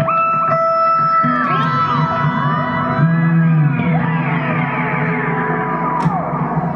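Electric guitar sounds through a self-oscillating Boss DM-2W analogue delay and an EHX Pitchfork pitch shifter, layered by a looper. Held tones bend up and down in sweeping glides over a low drone as an expression pedal changes the delay rate and pitch.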